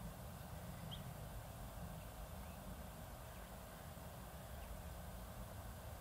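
Steady low outdoor background rumble, with one short, faint bird chirp about a second in and a few fainter chirps later.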